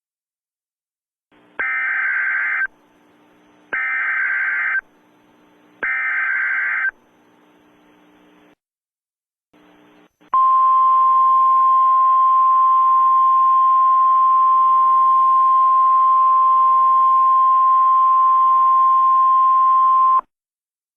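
Emergency Alert System header: three loud, screechy one-second bursts of SAME digital data tones, about a second apart, with a thin hiss between them. After a short gap comes a steady single-pitch attention tone of about 1050 Hz, held for about ten seconds before it cuts off sharply.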